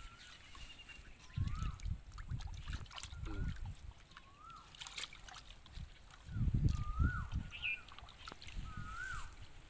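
Shallow muddy water sloshing and splashing in two bouts, about a second in and again after six seconds, as a catfish is wrestled into a cloth by hand. A bird keeps repeating a short whistled call that rises and then falls, about once a second.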